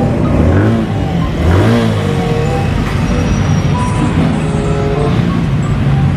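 Small motorcycle engine running and revving up about a second in, then running on steadily.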